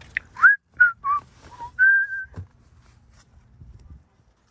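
A person whistling a short run of five or six notes, the first rising, the last held for about half a second, followed by a soft thump.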